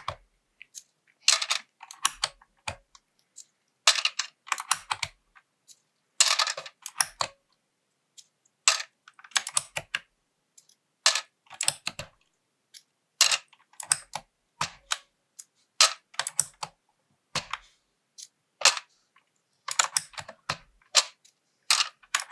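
Keycaps being pulled off a Wooting 2 mechanical keyboard with a keycap puller: short clusters of sharp plastic clicks every second or two, as the puller snaps over each keycap and the keycap comes free.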